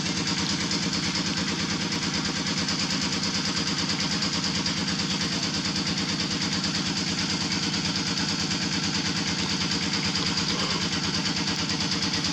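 A small engine idling steadily, with a rapid, even pulse.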